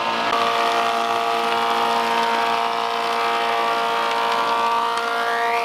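Large industrial thickness planer running steadily, with a steady whine over a noisy hiss, as a thick sipo mahogany hull plank is fed through it. A rising whine comes in near the end.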